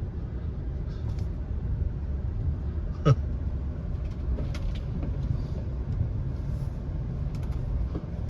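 A truck driving slowly on a snowy road, a steady low rumble from the engine and tyres, with one sharp knock about three seconds in and a few faint clicks after it.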